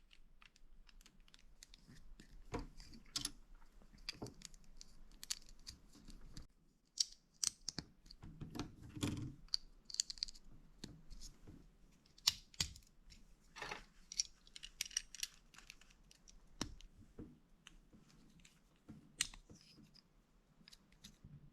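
Faint, irregular clicks and rustling of plastic building bricks being handled and pressed together during assembly.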